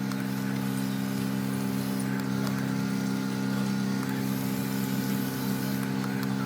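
A motor running with a steady, even hum that holds the same pitch throughout.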